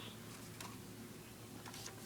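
Faint handling of a folded sheet of origami paper: a few light ticks and rustles over quiet room tone.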